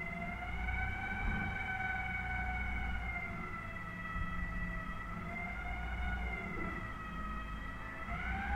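Rear-loading garbage truck working at the kerb: a high whine from its hydraulic lifting and compacting gear, its pitch wavering slowly up and down, over the diesel engine running.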